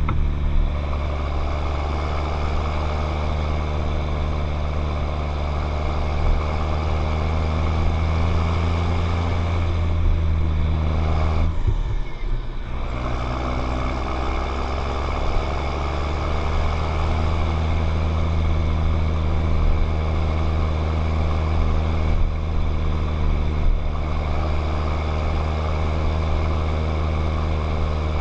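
John Deere 7710 tractor's six-cylinder diesel engine running steadily, with a brief dip in its sound about twelve seconds in.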